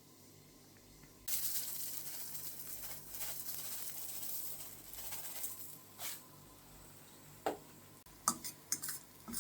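Dried onion flakes tipped into hot coconut oil with garlic granules, sizzling suddenly about a second in and fading over several seconds. A few clinks of a utensil on the pan near the end.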